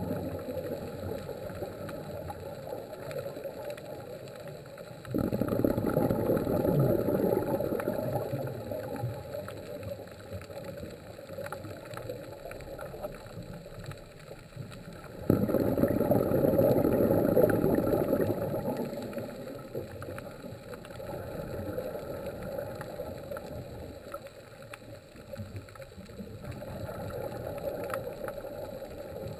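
Scuba diver's breathing through a regulator, heard underwater: sudden bursts of exhaled bubbles about five seconds in and again about fifteen seconds in, each fading over a few seconds, with quieter stretches and softer swells between.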